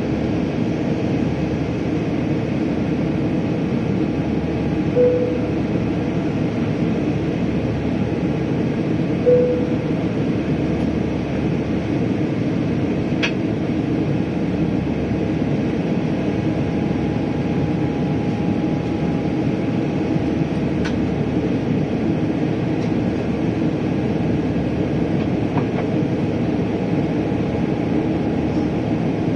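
Steady roar inside the cabin of a Boeing 777-300ER climbing out, with the GE90-115B engines and airflow heard from a window seat over the wing. Two short tones, about five seconds in and again about four seconds later, stand out briefly above the roar.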